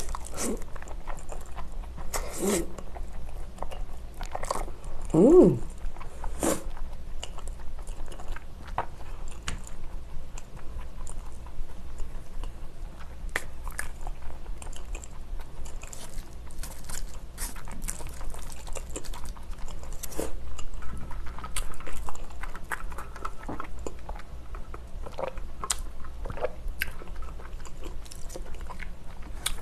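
Close-miked eating of spicy bibim-naengmyeon, chewy cold noodles in thick red chili sauce: slurping the noodles in, then steady wet chewing with many small clicks and smacks of the mouth. A louder, pitched mouth sound comes about five seconds in.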